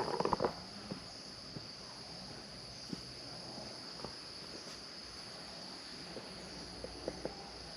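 Steady high-pitched drone of insects, crickets or cicadas, with a few faint taps now and then.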